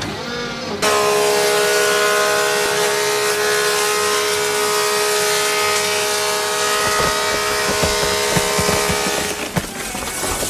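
Combine harvester running: a steady machine hum with several held whining tones over a loud hiss. It cuts in about a second in, after a brief gliding sound, and stops near the end.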